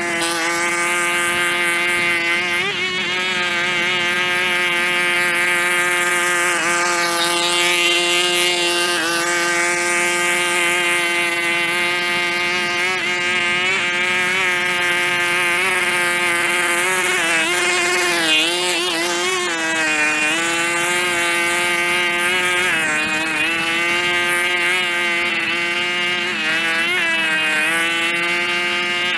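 A small engine running steadily at a constant speed, with slight dips in pitch about two-thirds of the way through.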